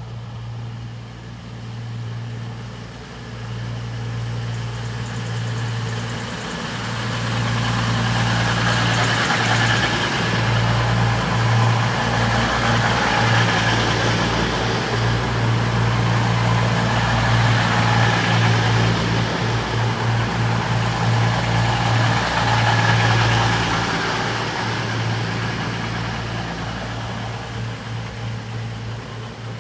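CrossCountry Voyager diesel multiple unit passing through a station: its underfloor diesel engines give a steady low drone while the rush of wheels on the rails swells to a loud peak and then fades away.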